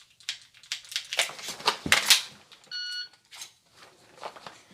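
A quick run of sharp clicks and knocks from a pistol being dry-fired and reloaded, with one low thud. About three seconds in comes a short electronic shot-timer beep, the par-time signal marking the end of the 5-second limit, followed by a few fainter clicks.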